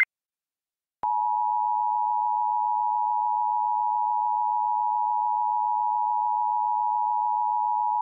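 Emergency Alert System attention signal: a steady, unbroken two-note alert tone that starts about a second in and holds.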